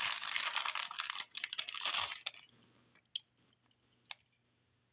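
Thin clear plastic bag crinkling and rustling as a small die-cast toy car is worked out of it, stopping about two and a half seconds in. Two light clicks follow as the car is handled.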